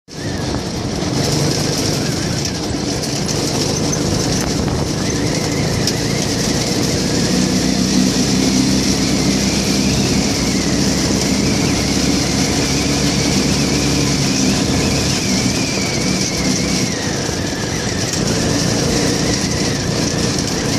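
Go-kart engine running while the kart drives along a dirt road, with steady road noise. The engine's pitch rises a little from about 7 seconds in and settles again near 14 seconds.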